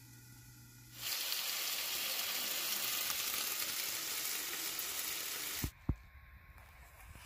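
A meat-topped tortilla frying in a nonstick pan, with a loud, steady sizzle that starts about a second in and cuts off abruptly near the end. Two low thumps follow.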